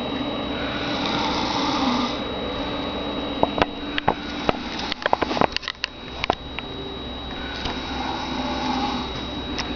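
A sleeping man snoring: one long snore about a second in and another near the end. In between comes a run of sharp clicks and knocks.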